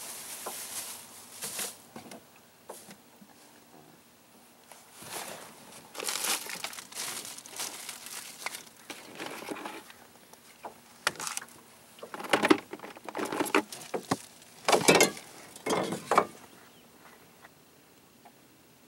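Irregular splashing and lapping of water close to the microphone, with a cluster of louder splashes from about twelve to sixteen seconds in.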